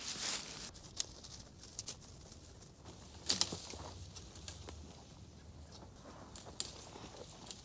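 Rustling through dry leaf litter and brush, with scattered sharp snaps and cracks, the loudest about three seconds in.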